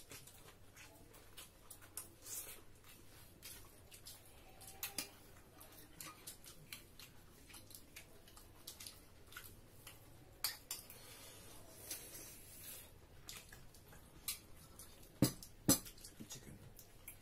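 Plates and bowls clinking and clicking now and then as people eat with their hands, with soft eating noises between, and two sharper clinks half a second apart near the end.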